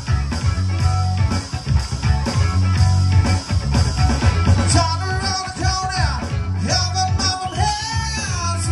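Live band playing with a steady bass-and-drum beat and guitar; a singer's voice comes in about five seconds in.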